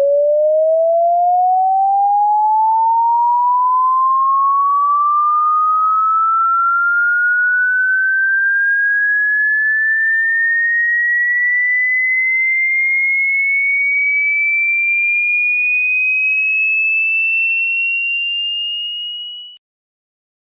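A single pure electronic sine tone gliding slowly and smoothly upward in pitch, from a mid tone to a high one. It holds steady in loudness, fades over its last couple of seconds, then cuts off shortly before the end.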